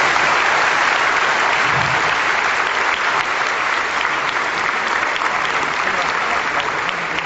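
Audience applauding steadily after the last line of a live poem, with a few voices in the crowd, easing slightly near the end.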